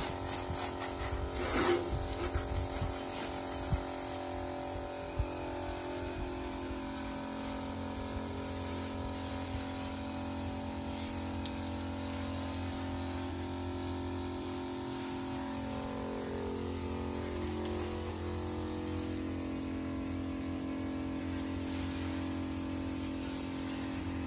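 Battery-powered knapsack sprayer's electric pump running with a steady whine while it sprays soapy water, with a hiss of spray. Its pitch sags somewhat about two-thirds of the way through. A few knocks come in the first seconds.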